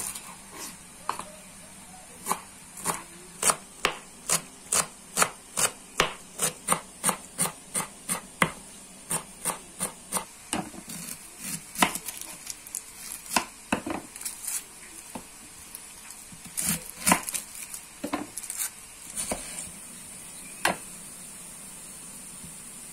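Knife chopping on a cutting board: a steady run of strokes at about two a second, then more scattered strokes in short clusters, ending a little over three-quarters of the way through.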